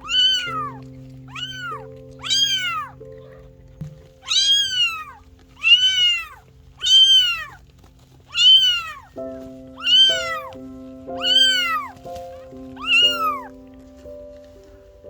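Newborn Maine Coon kitten mewing: about eleven short, high-pitched mews in a row, each rising and falling in pitch, roughly one a second.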